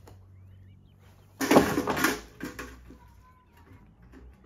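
Wooden feed trough knocked over by a calf, falling to the ground with a loud clatter about a second and a half in, followed by a few lighter knocks.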